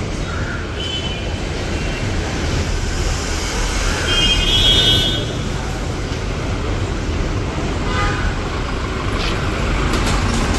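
Street traffic: a steady rumble of vehicles with a few short horn toots, the loudest lasting about a second, about four seconds in.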